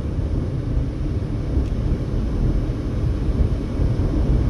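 Steady road noise of a car driving on the interstate, heard from inside the cabin: a low, even rumble of tyres and engine.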